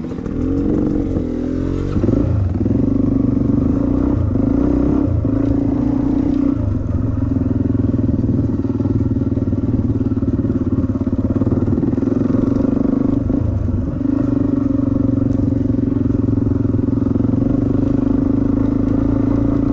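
Dirt bike engine revving as it pulls away, with its pitch rising and bending over the first couple of seconds. It then runs at a steady riding pitch, with a few brief dips as the throttle is eased.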